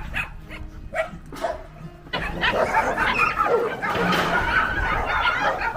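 Dogs barking: a few separate barks at first, then from about two seconds in many dogs barking at once.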